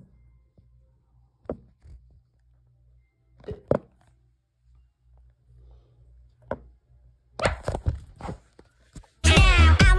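A few scattered soft knocks and thumps, growing busier and louder after about seven seconds; then loud electronic dance music with a steady beat starts up just before the end.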